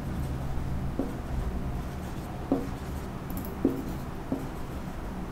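Marker pen writing on a whiteboard: soft strokes with a few short squeaks.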